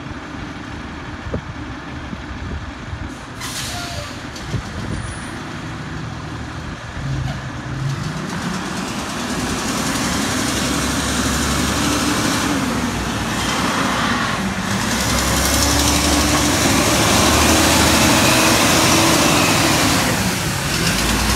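Autocar Xpeditor front-loader garbage truck's engine running as it pulls away and drives past. It grows steadily louder from about a third of the way in and is loudest near the end, as it passes close by.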